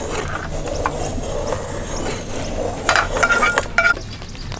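Banana leaves rustling and scraping as they are spread over a wooden table, with a few sharp clicks and clinks about three seconds in.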